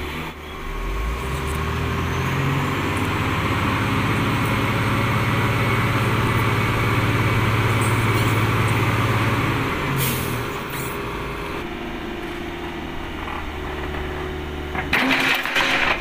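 Komatsu PC58 mini excavator's diesel engine throttling up about a second in and running hard as the machine is moved on the truck bed. It eases back to a lower, steady run about ten seconds in. Near the end there is a short burst of metal knocks and clatter.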